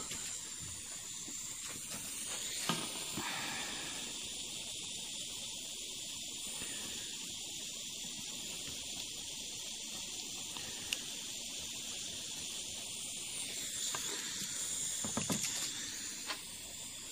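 Steady high hiss, with a few faint clicks and taps.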